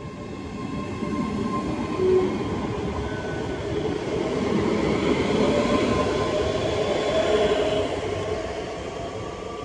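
ScotRail Class 385 electric multiple unit accelerating away from the platform, its rolling and running noise swelling as the carriages pass close by and easing off near the end, with a tone rising gently in pitch as it gathers speed.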